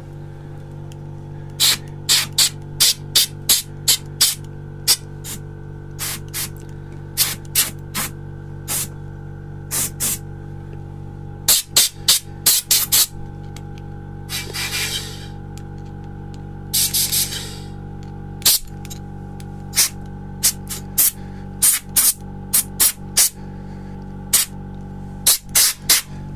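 A compressed-air blow gun fired in dozens of short, sharp blasts, with two longer hissing blasts about halfway through. An air compressor hums steadily underneath.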